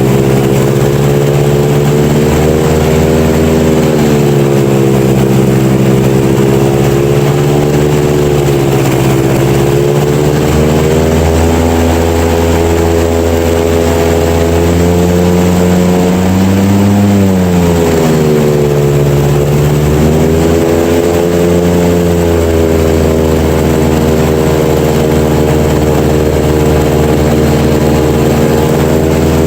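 Panther airboat's engine and air propeller running loud and steady at cruising speed. The pitch eases off and comes back a few times: a dip about three seconds in, and a short rise followed by a sharp drop a little past halfway.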